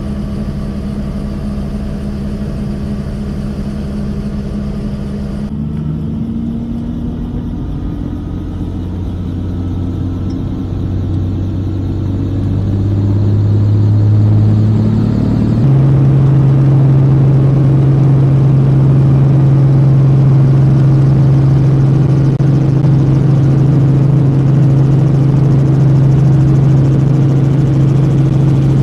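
Helicopter running: a steady droning hum that grows louder over the first half and then holds. Its pitch shifts abruptly about five seconds in and again about halfway through.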